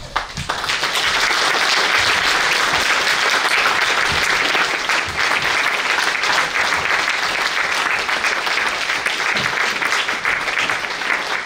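Audience applauding, a dense steady clapping that starts to die away near the end.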